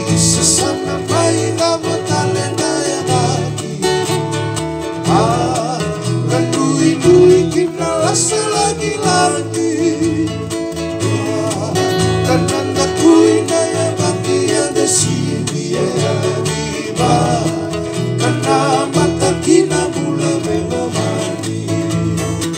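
Live band music led by an amplified acoustic guitar, with keyboard and bass, and a voice singing at times.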